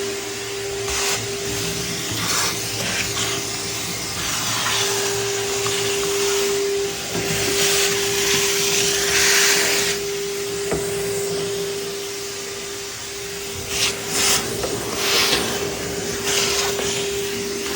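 Vacuum cleaner running steadily with a constant motor whine. Its rushing hiss swells several times as it picks up debris.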